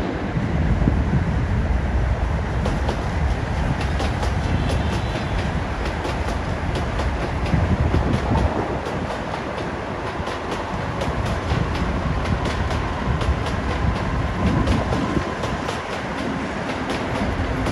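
Electric multiple-unit passenger train running along the tracks: a steady rumble with rapid clicking of wheels over rail joints, and a faint steady whine through the middle.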